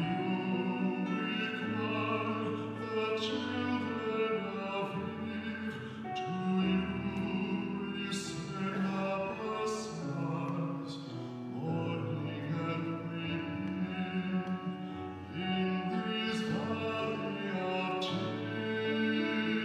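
A young male solo voice singing a slow hymn in long, held notes, accompanied by acoustic guitar.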